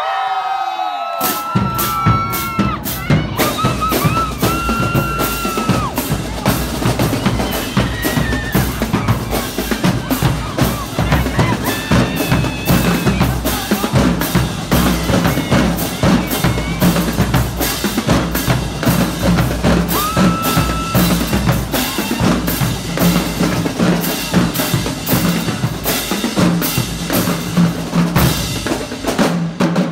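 Marching drumline of snare drums, bass drums and cymbals playing a fast, dense cadence, with the drums coming in about a second and a half in.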